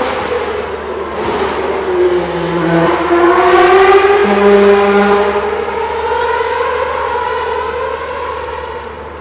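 Formula 1 cars' 2.4-litre V8 engines racing past at high revs, their pitch dipping and rising through gear changes. The sound builds to its loudest about midway and fades toward the end.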